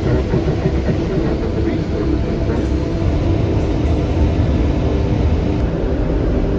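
Tour coach driving, heard from inside the cabin: a steady low engine and road rumble.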